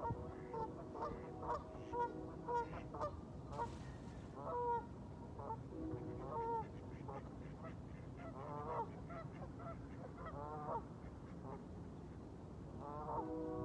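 Geese honking repeatedly, the calls coming thick and fast at first and then more spaced out. Soft music with long held notes comes in near the end.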